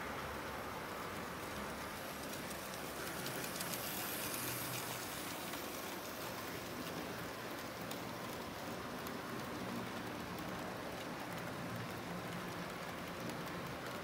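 Model railway freight wagons rolling past on the track: a steady hiss of small metal wheels on the rails, with faint clicks.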